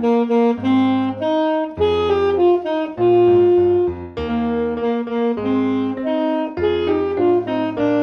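Alto saxophone playing a melody of short phrases of held notes, changing about twice a second, over a recorded accompaniment with piano and low bass notes.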